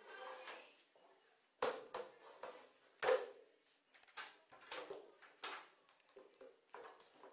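A series of irregular knocks and clunks, the two loudest about a second and a half and three seconds in, followed by several lighter ones.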